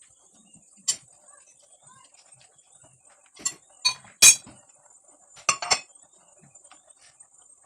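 Cutlery clinking against dishes while eating: about six sharp, separate clinks, the loudest about four seconds in. A faint steady high hiss runs underneath.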